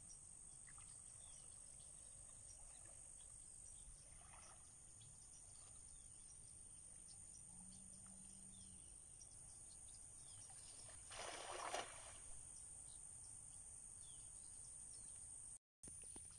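Faint evening riverside ambience, close to silence: a steady high insect drone with a few faint chirps, and one brief burst of noise about eleven seconds in.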